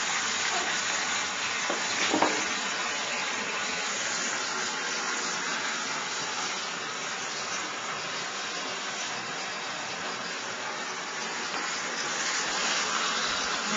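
Water running steadily in a steady rush, with one brief louder sound about two seconds in.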